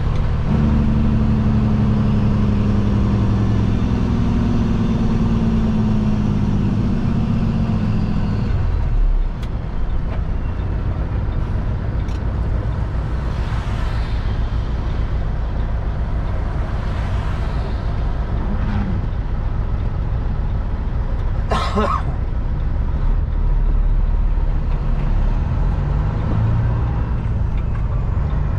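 Diesel engine of a Kenworth W900L semi truck heard from inside the cab, its note falling steadily for about eight seconds and then dropping away about nine seconds in, leaving a low steady rumble. A short sharp hiss, typical of an air release, comes about two-thirds of the way through.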